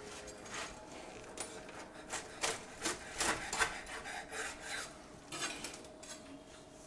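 Large kitchen knife sawing through a crisp-baked pizza crust on a wooden cutting board: irregular crackling crunches as the blade cuts, the sound of a very crispy crust.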